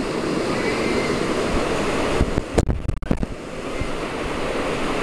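Whitewater rapids rushing and splashing around an inflatable raft. A couple of sharp knocks come a little past halfway, after which the rush is somewhat quieter.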